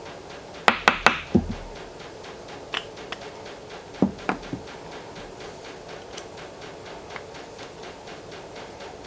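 Metal tools and regulator parts knocking and clinking on a workbench. A quick cluster of about four sharp knocks comes about a second in, a few lighter taps follow, and another cluster comes around four seconds in, over a steady background hum.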